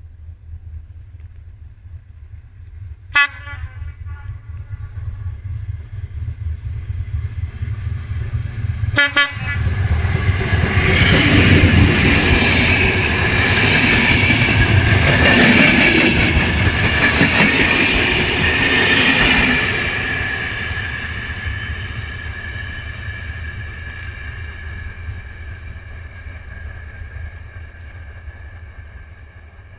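Locomotive-hauled passenger train approaching, sounding two short horn blasts, the first a few seconds in and the second about nine seconds in. The coaches' wheels then rumble and clatter past for about ten seconds, loudest while the train passes, and the sound drops off and fades as it recedes. A steady low wind rumble on the microphone runs underneath.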